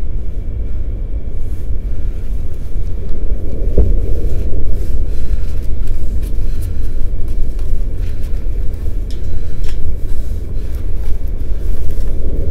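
Steady low rumble with a single sharp knock about four seconds in.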